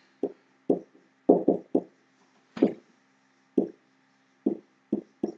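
Marker pen writing on a whiteboard: about ten short, uneven taps and strokes as a word is written.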